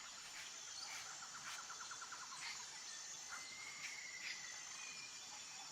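Faint outdoor nature ambience: a steady high insect drone, with a few bird calls, a rapid trill of short notes about a second in and a held whistle near the middle.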